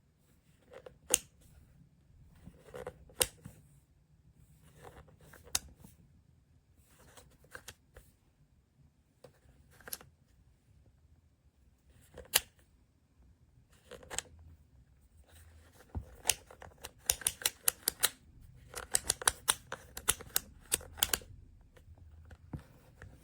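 Sharp clicks and taps of small hard objects being handled, a few at a time at first, then a quick run of many clicks in the last several seconds.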